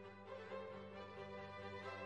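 Soft background music with held, sustained notes.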